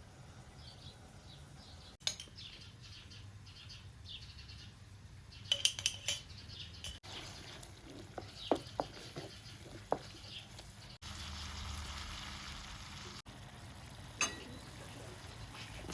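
Kitchenware clinking and knocking in a few sharp strikes, with birds chirping in the background and a short stretch of steady hiss.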